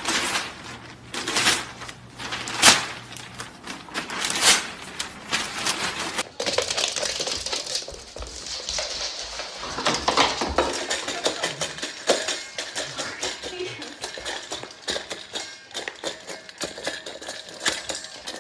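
A dog's stainless steel bowl rattling and clinking against a wooden floor as the dog noses and pushes it, in many quick knocks.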